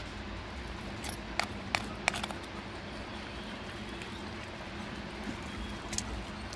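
Hand butchering of a goat head with a knife: a few sharp clicks and taps between one and two seconds in, and one more near the end, over a steady low background noise.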